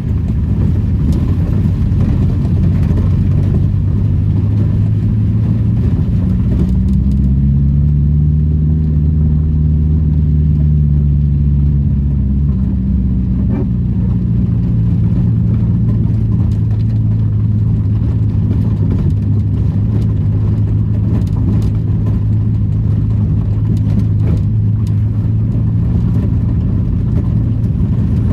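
Daihatsu Charade's engine running as the car is driven, its pitch climbing under acceleration about a quarter of the way in, dropping abruptly near the middle, then holding steady.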